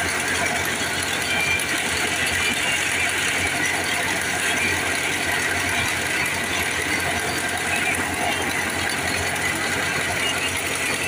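Tractor-driven wheat thresher running steadily under load as wheat stalks are fed in: a constant loud mechanical din of the engine and the spinning threshing drum.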